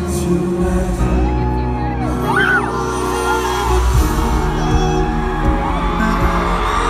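Live concert music recorded from within the arena audience: slow, sustained instrumental chords with fans whooping and cheering over them.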